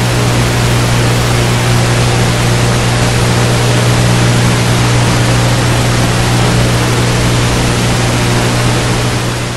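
Loud, steady television-style static hiss with a low hum underneath.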